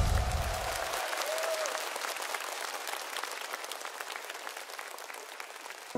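Studio audience applauding, the clapping slowly dying away.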